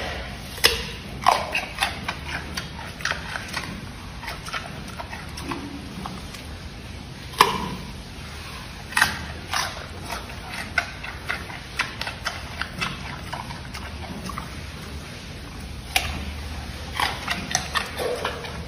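Giant panda biting and chewing a carrot: irregular crunches and smacking chews, coming in clusters of several a second with short pauses between.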